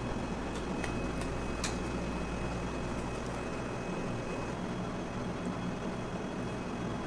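Steady kitchen background hum and noise, with a few light clicks near the start as metal tongs place sliced steak on the pizza.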